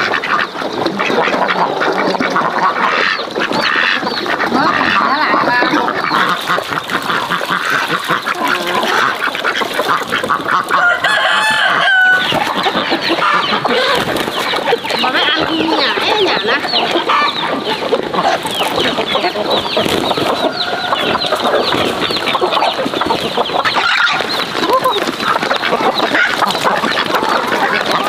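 A large flock of chickens and domestic ducks calling over one another, with hens clucking and ducks quacking in a dense, continuous din while they are fed.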